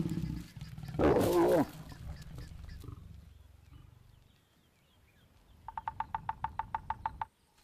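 Lions growling, then a loud snarl about a second in that fades away, the snarl that goes with lion mating. Near the end a bearded woodpecker drums on dead wood: a rapid roll of about fourteen sharp taps in a second and a half.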